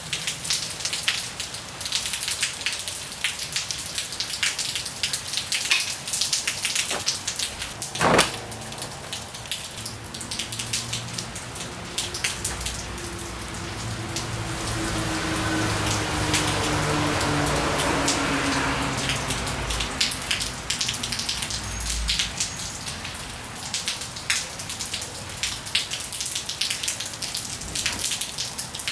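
Steady rain pattering and dripping on hard surfaces, with many small drop hits. A single sharp knock comes about eight seconds in. Around the middle, a longer swell of hiss with a slowly falling tone rises and fades away.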